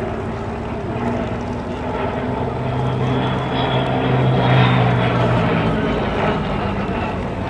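Supermarine Spitfire's V12 piston engine droning as it flies past overhead. The sound grows louder to a peak about halfway through, then eases off with a slight drop in pitch.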